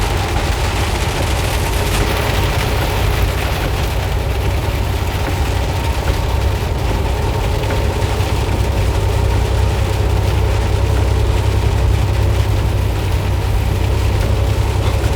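Semi-truck cab noise at highway speed in heavy rain: a steady low engine and road drone with an even hiss of rain and spray over it.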